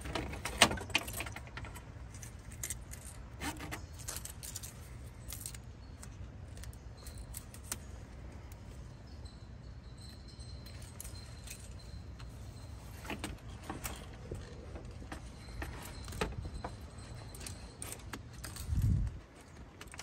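Scattered light clicks, taps and small rattles of plastic electric-fan mounting hardware, foam pads and push-through ties, being fitted by hand against a radiator core, over a steady low rumble. A louder low thump comes about a second before the end.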